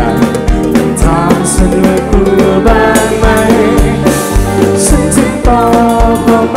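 Live band music played loud through a concert PA: drum kit with a steady kick-drum beat about twice a second under guitars and a melody line.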